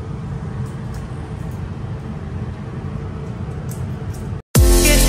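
Steady low mechanical rumble with a few faint clicks. Near the end it cuts off, and loud electronic music with a heavy bass beat begins.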